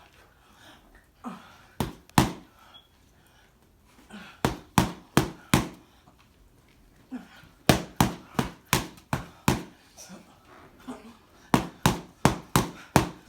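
A person exercising: quick runs of sharp slaps or impacts on a hard floor, about three a second, in groups of four to eight with short pauses between.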